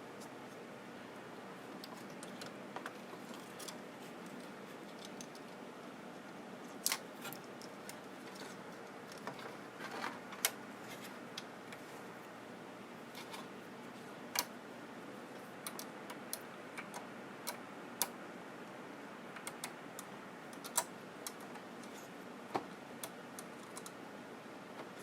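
Irregular small clicks and taps of plastic and metal parts being handled and fitted in a CD/DVD changer's disc mechanism, over a faint steady hiss.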